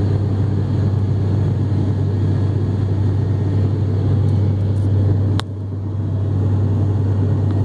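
Cabin noise of an ATR 42-500 turboprop heard right beside its six-bladed propeller: a loud, steady drone with a strong low hum. About five seconds in, a single click sounds and the drone briefly drops in level, then builds back.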